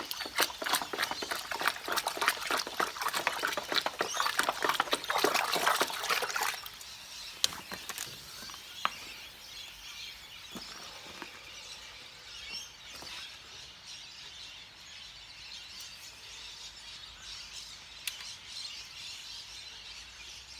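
Water being poured and splashing into a container for about six and a half seconds, then a faint steady hiss with a few scattered clicks.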